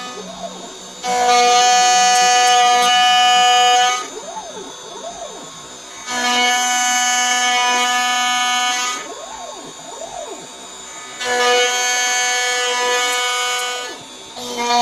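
CNC mill's end mill cutting a metal plate: a loud, steady whine that comes in three-second stretches about every five seconds as the cutter engages the material, with quieter gaps between.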